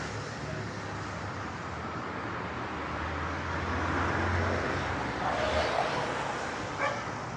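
Street traffic: passing vehicles' engines and tyres in a steady wash of noise with a low hum, swelling a little about halfway through.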